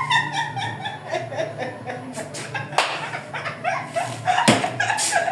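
A woman's excited squealing and laughter without words, with a couple of short sharp clicks about three and four and a half seconds in.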